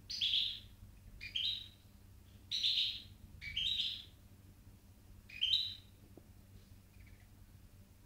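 Bulbul at a nest of naked, newly hatched chicks: five short chirping calls, irregularly spaced.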